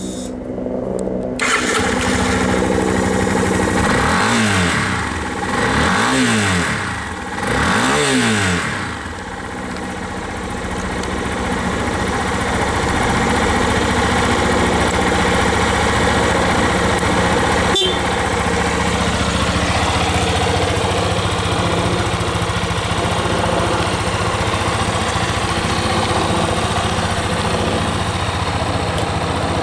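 Yamaha Serow 250 (Touring Serow Final Edition) single-cylinder engine on its stock exhaust, starting about a second and a half in. It is blipped three times, each rev rising and falling, then settles into a steady idle. A single sharp click comes partway through the idle.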